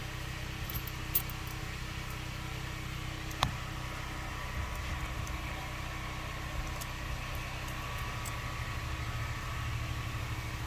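A vehicle engine running steadily, a low pulsing hum, with two sharp metallic clicks, about one and three and a half seconds in.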